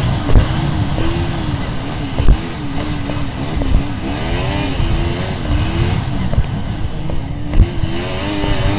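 Yamaha snowmobile engine running at speed, its pitch rising and falling again and again with the throttle. Several short low thumps come through.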